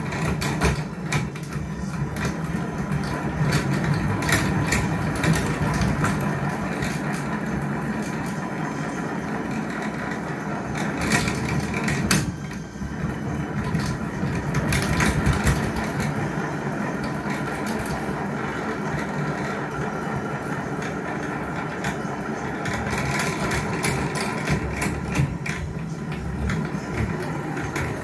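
Hand-cranked honey extractor being turned steadily. Its crank gears whir and rattle with many small clicks as the frame basket spins the honey out inside the metal drum. The sound briefly eases about twelve seconds in.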